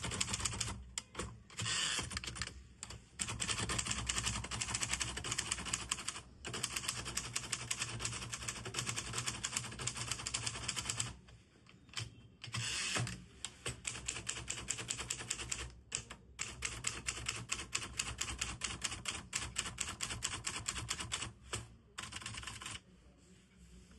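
1967 Hermes Baby portable manual typewriter being typed on: fast runs of keystrokes and typebar strikes, broken by a few short pauses, thinning to a few scattered strokes near the end.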